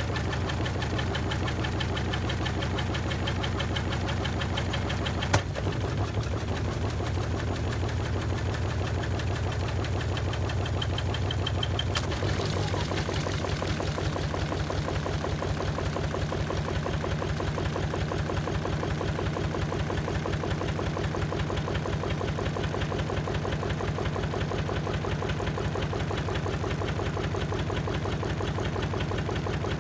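Washing machine spinning with wet towels in the drum: a fast, even, rhythmic knocking and vibration. There is a sharp single knock about five seconds in and another about twelve seconds in.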